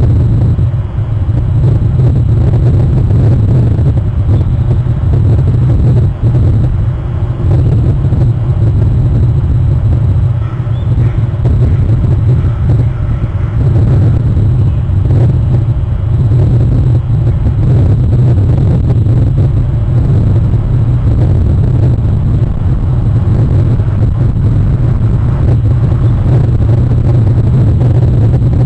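Loud, steady low rumble of wind buffeting an outdoor webcam's microphone, with no distinct events.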